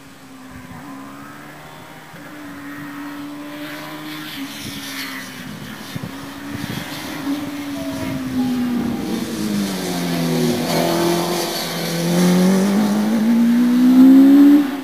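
OMS Hornet sprint and hillclimb racing car running hard, its engine note rising and dipping with throttle and gear changes as it grows steadily louder. Near the end it revs up in one long rising pull, at its loudest, then the sound drops away suddenly.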